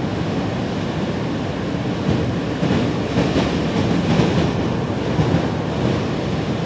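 Steady rumble of road and wind noise inside a moving car driving on an icy highway, with a strong crosswind pushing against the car.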